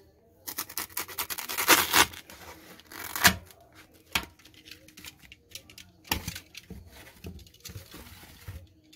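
Utility knife slicing through a foam pool noodle: a run of rasping, tearing strokes over the first three seconds or so, then a few separate sharp knocks as the cut pieces are handled.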